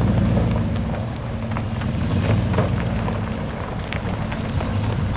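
A four-wheeler's engine running steadily at low speed while it pulls the ramp, with scattered light clicks and rattles.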